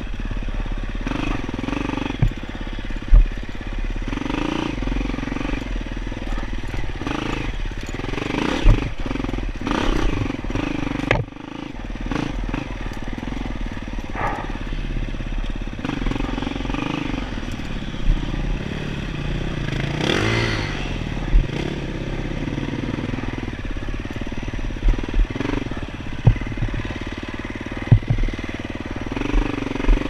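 Dirt bike engine under load on a rough trail, the throttle repeatedly opened and closed so the revs rise and fall, with a quick rev up and back down about two-thirds of the way through. Sharp knocks and clatter from the bike hitting bumps come now and then.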